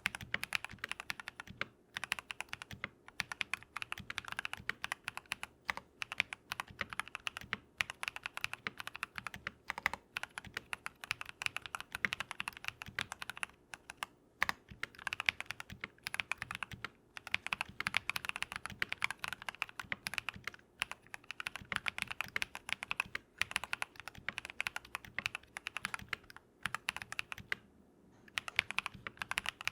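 Continuous fast typing on a modded Keychron V1 mechanical keyboard with lubed Drop + Invyr Holy Panda tactile switches, dense runs of keystrokes broken by short pauses every few seconds.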